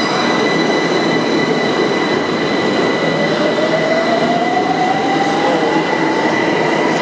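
Metro train running, with a steady high whine over loud rumbling noise. A motor tone rises steadily in pitch from about three seconds in as the train accelerates.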